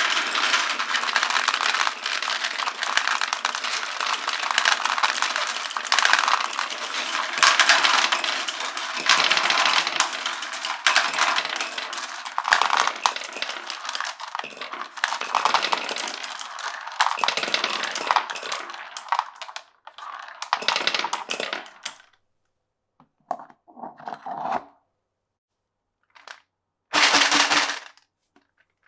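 Many glass marbles rolling and clattering down a wooden marble run, a dense rattle of small knocks that thins out after about twenty seconds. A few short runs of clicks follow, then one last loud clatter near the end.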